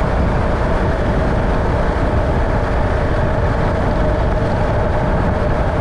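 A vehicle in motion: a steady, even rumble of engine and road noise with a faint constant hum above it, no changes throughout.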